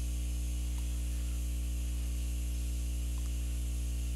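Steady low electrical mains hum with a stack of overtones, unchanging throughout.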